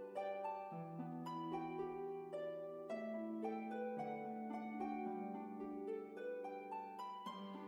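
Background music: a gentle melody of plucked notes over a slower, lower bass line.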